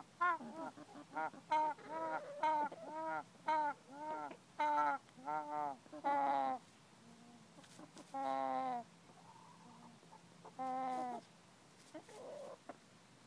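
Ameraucana hen giving a quick run of short pitched clucks, two to three a second, then after a pause two longer drawn-out calls. The owner takes these sounds for wheezing.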